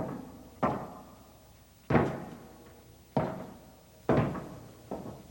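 Slow footsteps thudding on the wooden planks of a suspension bridge, six heavy steps at roughly one a second, each with a short ringing decay.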